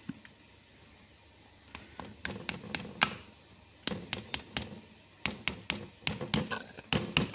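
Light hammer taps driving a new oil seal into the bore of a diesel injection pump's automatic timer: short, sharp taps in uneven runs, starting about two seconds in and coming quicker and closer together toward the end.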